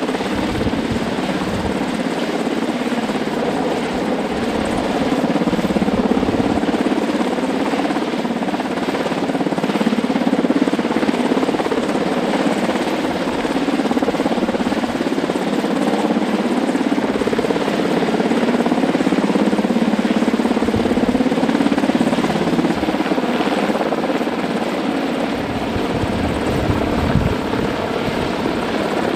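UH-60 Black Hawk helicopter hovering overhead, its rotor and turbine noise loud and steady.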